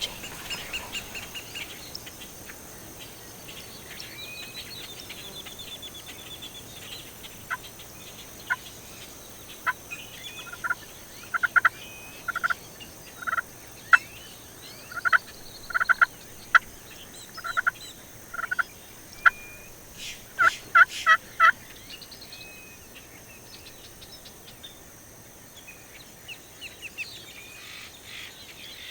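Wild turkey calling: a long run of short yelps, about a second apart, quickening near the end, with small songbirds chirping.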